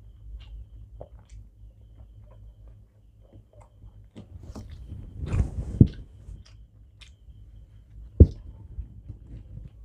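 Close-up eating sounds of a man eating rice and egg curry by hand: chewing and mouth noises, with fingers squishing and mixing rice on a steel plate. A louder run of sounds comes around five to six seconds in, and a single sharp knock a little after eight seconds.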